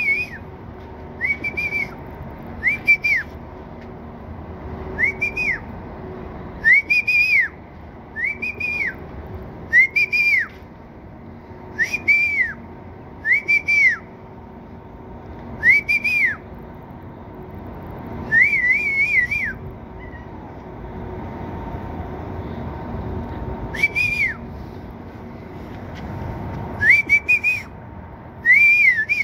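Kittens meowing: short, high-pitched meows that rise and fall, often two close together, repeated every second or two, with a pause of a few seconds past the middle.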